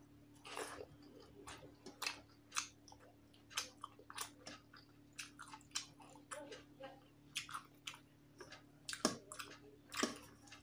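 Close-mouthed chewing of a mouthful of rice and curry, heard as soft, irregular wet clicks and smacks, with fingers mixing rice on a steel plate.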